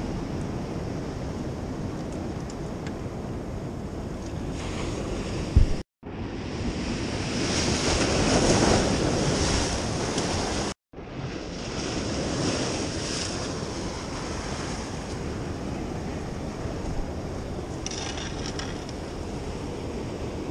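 Ocean surf washing over the rocks of a jetty, with wind buffeting the microphone; the surf swells louder for a few seconds in the middle. A single sharp thump comes just before the sound cuts out briefly, and it cuts out once more a few seconds later.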